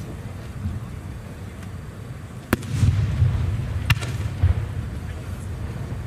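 No. 5 (about 15 cm) aerial firework shells going off at a distance: a sharp crack about two and a half seconds in and another about four seconds in, each followed by a low rolling rumble.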